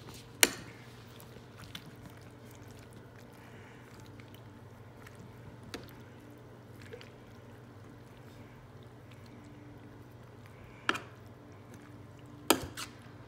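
A spoon clinking and knocking against cookware while macaroni is stirred into a milk and cheese mixture, with soft wet squishing between the knocks. A few sharp knocks, one just after the start and the two loudest near the end, over a steady low hum.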